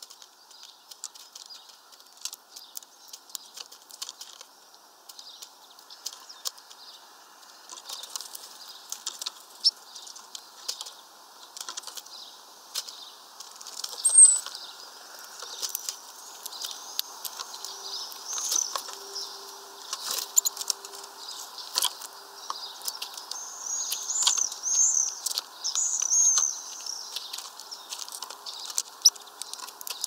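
Great tits and a greenfinch feeding at a seed tray: many sharp clicks of beaks pecking and cracking sunflower seeds on the plastic tray, wings fluttering as birds come and go, and short high chirps, the loudest a single note about halfway through.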